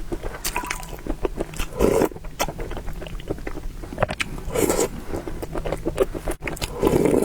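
Close-miked eating of noodles and soup: wet chewing and mouth clicks, broken by three louder noisy bursts spread through.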